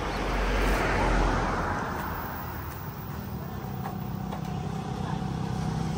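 Road traffic going by: one vehicle passes with a rushing swell about a second in, then another vehicle's engine hum draws nearer, growing louder toward the end.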